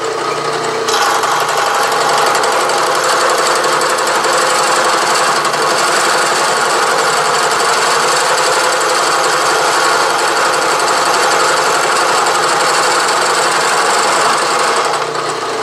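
Milling machine's gear cutter cutting the first tooth into a steel gear blank held in a dividing head. The running spindle hums, then about a second in the cutter bites and a steady grinding chatter of metal cutting holds until just before the end, when the cut ends and only the hum is left.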